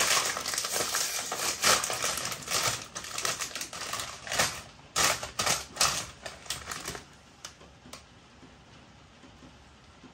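Crisp packet crinkling and crackling as it is opened and handled, a dense run of irregular crackles that dies away about seven seconds in.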